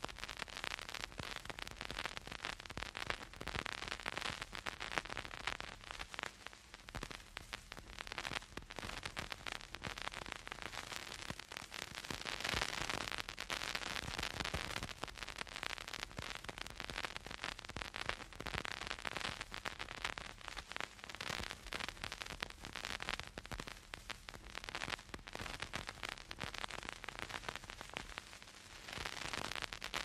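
Vinyl record surface noise with no music: dense crackle and small pops from a stylus in the groove, over a soft hiss that swells and eases every few seconds. The crackle is the mark of a dusty, worn record surface.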